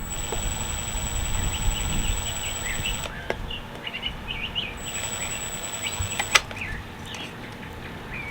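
Small birds chirping repeatedly in the background over a low rumble, with two sharp clicks, the louder one about six seconds in.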